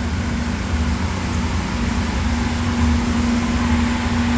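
Vacuum motor running steadily: a constant hum with one steady tone and an even hiss.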